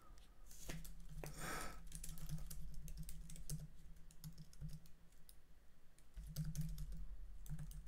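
Typing on a computer keyboard: quick irregular keystrokes that thin out around the middle and pick up again near the end.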